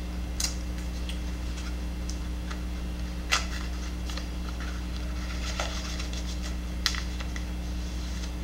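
A cardboard knife box being opened by hand: a few light clicks and rustles of the lid and the plastic sleeve inside, two of them sharper than the rest. A steady low hum runs underneath.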